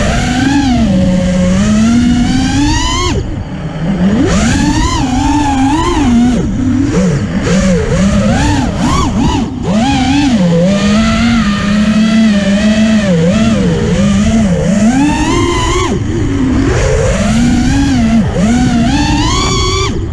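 FPV freestyle quadcopter's motors and propellers whining, the pitch swooping up and down constantly with the throttle. The sound drops briefly about three seconds in and again about halfway through.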